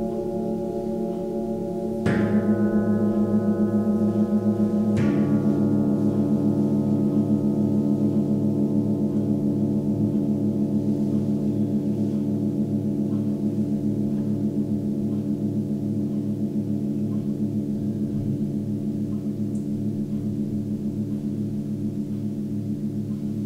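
Tibetan singing bowls of seven-metal alloy ringing with long, overlapping sustained tones. Two bowls are struck about two and five seconds in, renewing the ringing, which then slowly fades, with a pulsing wobble in the low tones.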